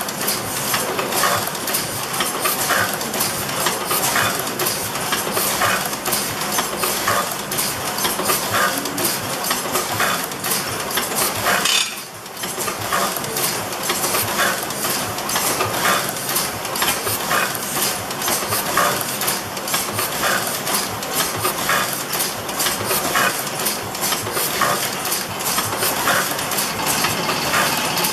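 Row of automatic platen letterpress printing presses running, a steady dense mechanical clatter of many quick clicks and clanks.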